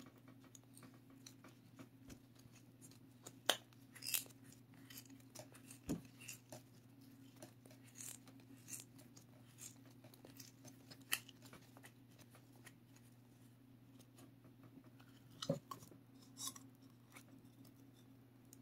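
Faint handling sounds: scattered soft clicks, taps and rubs as a silicone mold is flexed and peeled off a cast candle vessel lid, over a faint steady hum.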